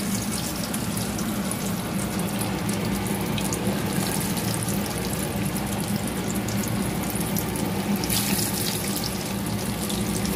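Shami kababs frying in hot oil in a pan: a steady, dense sizzle with fine crackling, with a steady low hum underneath.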